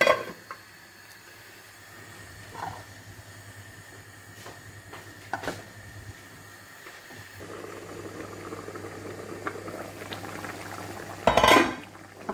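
Steel lids knocking against metal cooking pots, with a sharp clank at the start, a few lighter knocks, and a loud clatter about a second before the end. From about halfway the chicken and potato curry is heard bubbling at a simmer in its pan.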